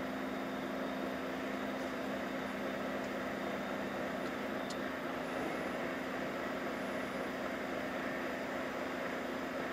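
Vehicle engine running steadily, a constant low hum with even mechanical noise over it.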